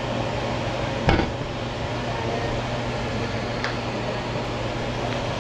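Steady hiss and low hum from a lidded stainless stockpot boiling on a glass-top stove, with one sharp knock about a second in and a fainter tick a couple of seconds later.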